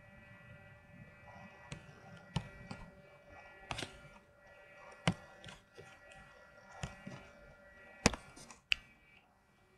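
Computer mouse clicking: about nine sharp clicks at irregular intervals, a few noticeably louder than the rest, over a faint steady electrical whine.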